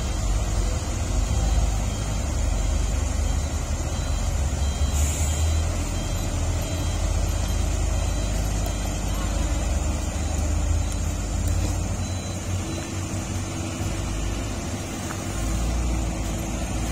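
Heavy truck's diesel engine idling, a low steady rumble.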